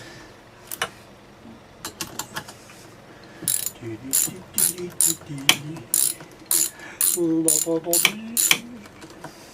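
Socket-wrench ratchet clicking as it is worked on the flywheel nut of a 1974 Homelite XL-12 chainsaw: a few scattered clicks, then a run of sharp clicks about two a second for some five seconds.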